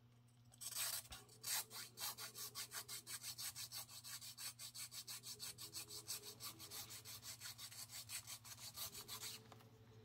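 Needle file rasping back and forth in the screw hole of a G10 pistol grip panel, about five quick strokes a second, starting about half a second in and stopping near the end. The hole is being filed out a little more so the grip will sit flush on the frame.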